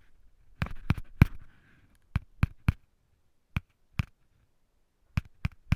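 Sharp taps on a hard surface, about eleven in all, coming in uneven groups of two or three with short pauses between.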